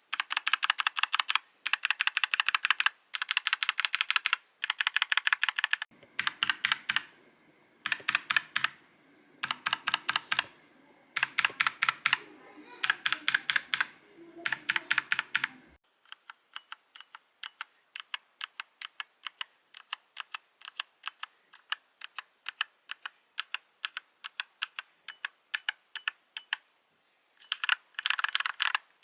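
NuPhy Air96 low-profile mechanical keyboard being typed on, keystrokes clacking in quick bursts. About halfway through the typing turns quieter and sparser, then loud fast runs return near the end.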